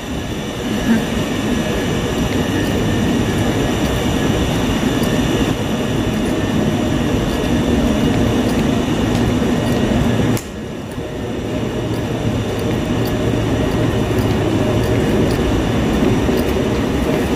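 Southern passenger train rolling along the station platform, a steady rumble with high whining tones over it. The sound breaks off briefly and picks up again about ten seconds in.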